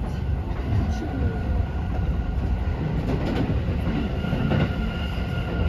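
Running noise heard inside a moving JR passenger train: a steady low rumble of wheels on the rails, with a faint steady high whine and a few faint clicks.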